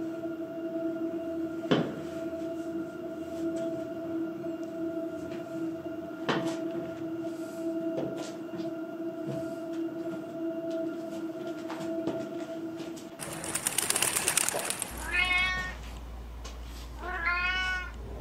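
A steady low hum with a few scattered soft knocks, then near the end a loud hiss followed by a cat meowing twice.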